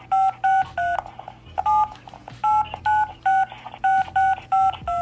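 Touch-tone telephone keypad beeps: about a dozen keys pressed in quick succession, each a short two-note beep, with a brief pause about a second in and another about two seconds in. A string of digits is being keyed in over a phone call.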